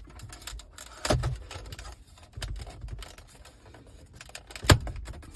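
Handling noises of installation work: a run of small clicks and rattles, with two louder knocks, one about a second in and the loudest near the end.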